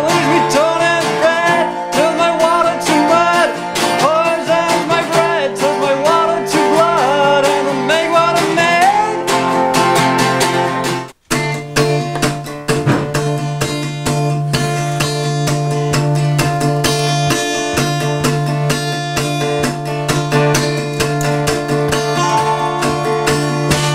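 Acoustic blues-style guitar music: a melody of sliding, bending notes, then after a brief break about eleven seconds in, an acoustic guitar and a resonator guitar strummed and picked together over a steady low note.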